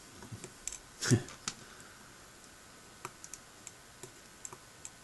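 Light clicks and taps of small metal parts and tools being handled on a glass plate on a workbench, with one louder knock about a second in.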